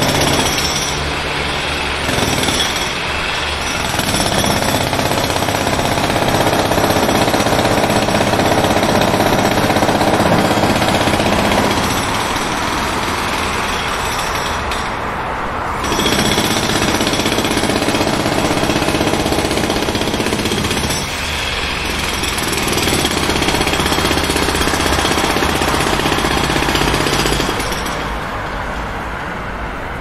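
Jackhammer breaking pavement in long runs of rapid hammering, easing off briefly between runs.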